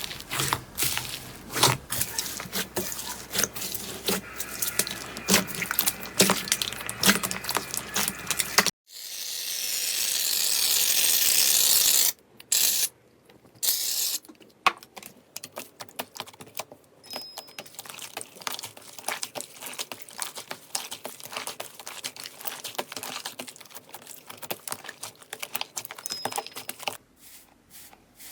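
Slime being squished and pressed by hand, with dense, rapid wet crackles and pops. About nine seconds in, these give way to a hiss that swells louder for about three seconds and cuts off. After that come scattered pops and then finer, quieter crackling.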